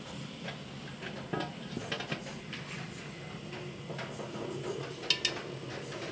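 Steady hiss of steam from a large steamer pot cooking radish-cake batter, with a few sharp metallic clinks as the glass lid is handled, the loudest two close together about five seconds in.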